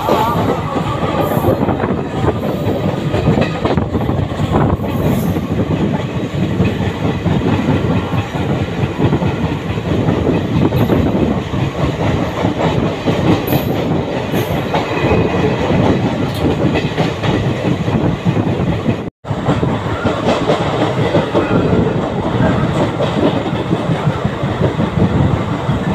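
Train running at speed, heard from inside a carriage at an open window: a steady loud rumble and rattle of wheels on the rails. The sound drops out for an instant about three-quarters of the way through.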